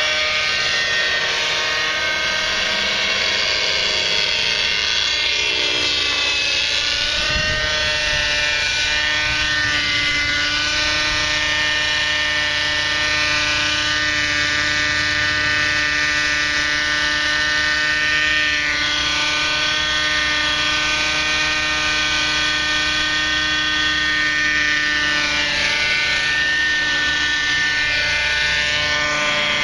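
Thunder Tiger 30 RC helicopter's nitro glow engine running at flight speed with its rotors, a steady buzzing whine whose pitch rises and falls several times as the helicopter hovers and moves low over the ground.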